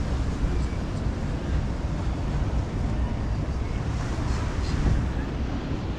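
Wind buffeting the microphone, a steady rumbling noise that flickers in strength.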